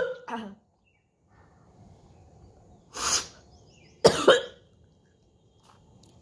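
A woman coughing and hawking to bring up thick greenish phlegm from a chest cold with a sore throat. One harsh cough comes right at the start, another about three seconds in, and a sharper double cough about four seconds in.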